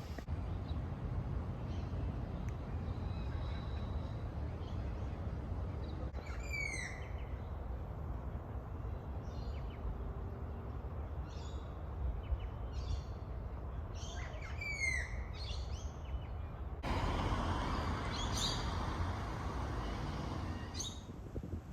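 Wild birds calling in short clusters of sharp, quickly falling chirps, over a steady low rumble of wind on the microphone. The background changes abruptly about 17 seconds in.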